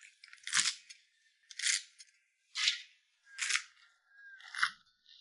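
Knife slicing through raw pork, five separate strokes about a second apart.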